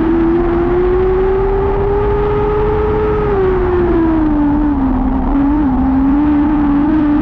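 Lightning sprint car's motorcycle engine running hard at high revs. Its pitch climbs slowly over the first three seconds, drops around five seconds in, and then climbs again.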